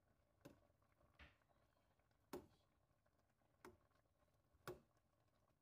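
Faint, scattered knocks of a metal slotted spoon against a stainless steel cooking pot while stirring vegetables, about five light clinks a second or so apart.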